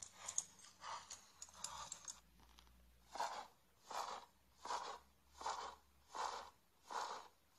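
Wing-flap sound effect from an augmented-reality card app for a flying fiery bird: six evenly spaced whooshing wingbeats, about one every three-quarters of a second, starting about three seconds in. Before them come about two seconds of crackly, scratchy rustles.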